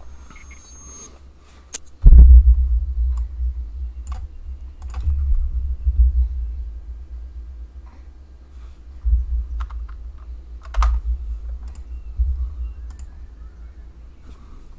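Scattered light clicks, like handling a computer keyboard and mouse, over a low rumble that comes in suddenly about two seconds in and then swells and fades every few seconds.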